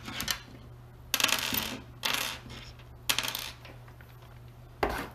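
Small steel screws and metal robot parts clattering as they are dropped and set down on a wooden workbench, in four or five short bursts about a second apart.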